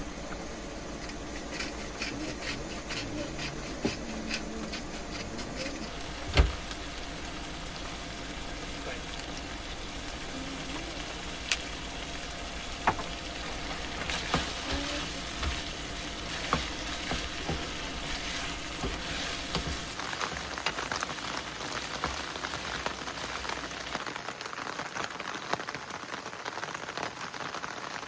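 Food sizzling and crackling in a frying pan while it is stirred, with small utensil clicks and one sharp knock about six seconds in.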